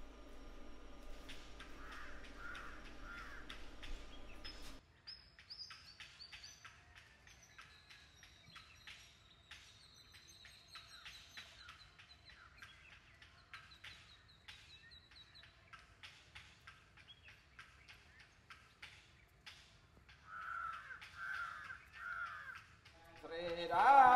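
Birds chirping and trilling, with a crow cawing three times near the end. The first few seconds are a steady electrical hum that cuts off suddenly. A loud voice or music comes in right at the end.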